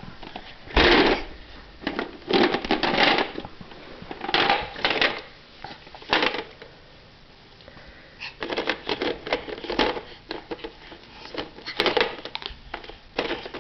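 Toy farm animals and a toy barn clattering and rattling as they are handled, in a string of short, irregular bursts.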